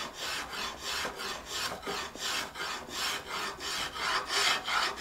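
Spokeshave cutting along a wooden guitar neck by hand: a quick series of short scraping strokes, about three a second, as the neck is shaped.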